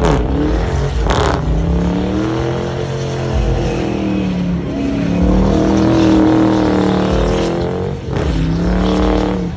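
Car engine revving hard, its pitch rising and falling repeatedly, as the car spins its tyres in a smoky burnout. Short sharp cracks come at the start, about a second in and again near the end.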